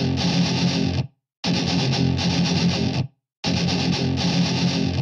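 Intro music of distorted electric guitar. Chords ring for about a second and a half and break off into a short silence, three times in a row.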